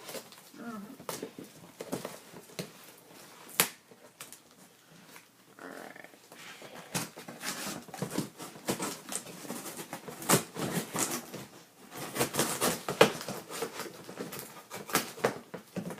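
A cardboard shipping box being opened and its contents unpacked: irregular crinkling, rustling and clicking of cardboard and packing material. It is sparse at first and busiest a few seconds before the end.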